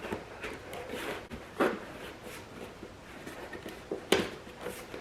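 Handling noises as a lawnmower's grass-catcher bag and its support rod are fitted onto the mower: soft rubbing and rustling, with two sharper clicks, one about one and a half seconds in and one about four seconds in.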